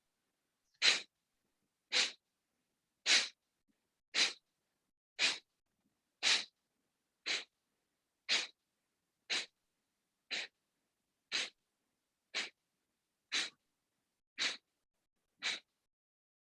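Kapalabhati breathing: short, forceful exhalations through the nose at a steady medium pace of about one a second, each a sharp puff of air with silence between.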